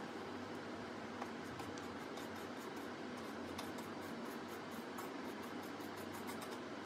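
Steady hiss of room noise with a faint low hum and scattered faint light ticks.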